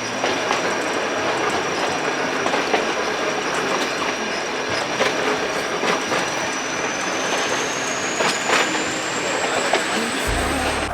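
Nilgiri Mountain Railway toy train running on the track, its wheels clattering over rail joints with a few sharper clacks. A high, steady wheel squeal runs throughout and rises in pitch over the last few seconds.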